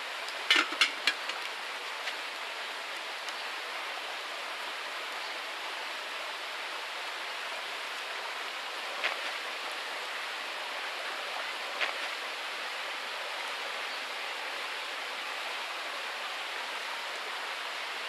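Metal kettle lid clinking several times as it is set on the kettle, about half a second in, over a steady rushing background noise. Later, two single sharp pops from the wood campfire.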